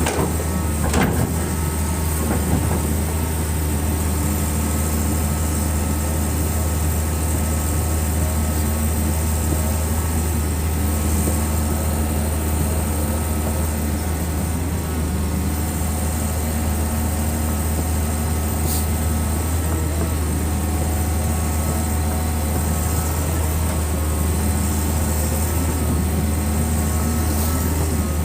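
Excavator's diesel engine running steadily at constant speed, with a deep continuous drone and a few steady tones above it. A short sharp click comes about a second in, and another later on.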